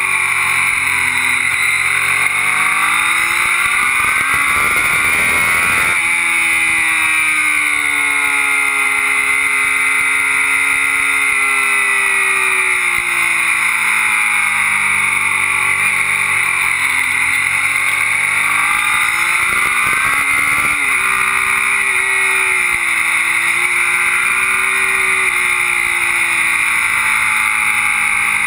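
Motorcycle engine under way, its pitch rising and falling with the throttle through bends, with two abrupt shifts in pitch where gears change, under heavy wind rush on the microphone.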